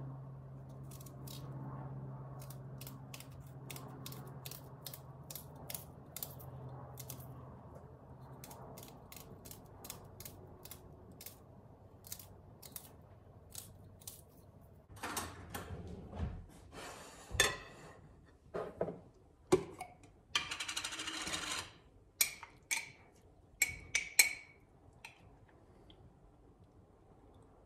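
A kitchen knife slicing a spring onion held in the hand, a quick run of crisp little cuts, over a faint low hum. From about halfway on, louder knocks and clinks as a glass jar of shredded beetroot is handled and a fork taps and scrapes against the glass, with a short rush of handling noise in between.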